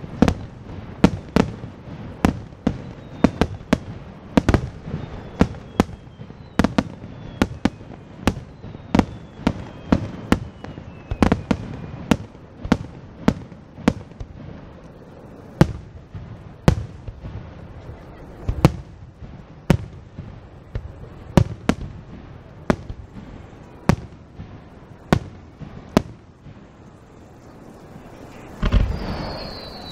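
Aerial firework shells bursting in a rapid series of sharp bangs, about one to two a second. Near the end comes a louder, longer rumble of bursts with a high whistle falling in pitch.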